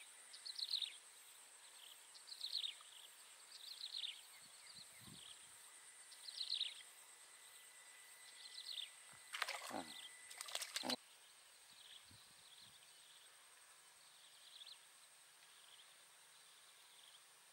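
A bird calling over and over in short falling chirps, one every second or two, growing fainter in the second half, over a thin steady high tone. A few louder sharp sounds come about ten seconds in.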